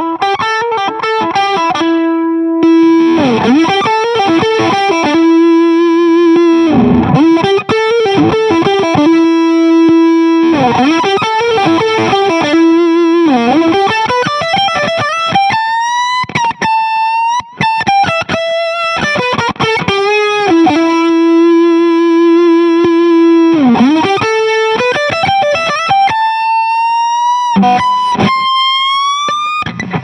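Electric guitar played through a fuzz pedal (a Velvet Fuzz clone) stacked with a Rangemaster-style treble booster. It plays long, sustained fuzzy lead notes that several times swoop down in pitch and back up, with upward string bends around the middle and near the end.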